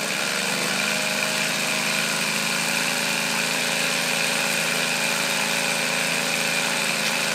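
3D-printed three-cylinder radial compressed-air engine running fast and steadily, with a hiss of exhausting air. Near the end the sound stops abruptly and fades away.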